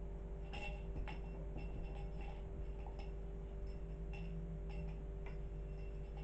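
Scattered light ticks and clicks at irregular moments as a kitten plays with a feather wand toy, over a steady low hum.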